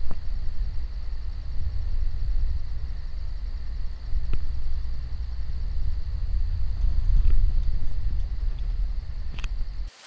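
Low, steady rumble of a vehicle driving along a forest road, with a steady high-pitched drone of cicadas over it. It cuts off suddenly just before the end.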